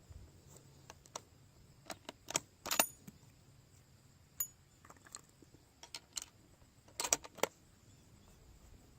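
Sharp metallic clicks and clinks of a bolt-action rifle being handled between shots: the bolt being worked and a fresh round chambered. The clicks are spread out, the loudest just under three seconds in, with a quick cluster of them about seven seconds in.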